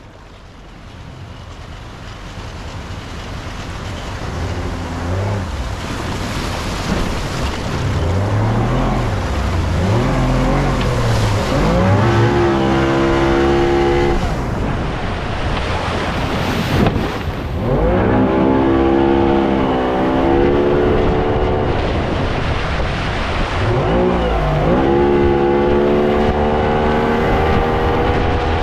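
Tiller-steered outboard motor driving a small skiff, revving up and down several times as the throttle is worked through surf, over the rush of water and wind. The sound fades in over the first few seconds.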